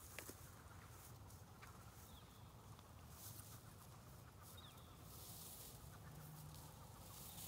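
Near silence: faint outdoor ambience, with a few short, faint bird chirps.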